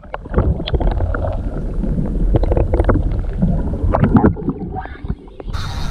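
Muffled underwater sound from a camera held below the surface: a low water rumble with many scattered clicks and knocks, switching to brighter open-air sound near the end.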